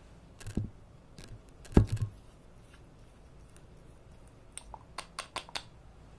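Objects being handled: a couple of dull knocks, the loudest about two seconds in, then a quick run of sharp clicks near the end.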